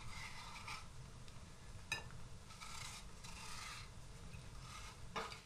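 Kitchen knife paring the skin off an apple, a faint irregular scraping as the blade cuts under the peel, with one short click about two seconds in.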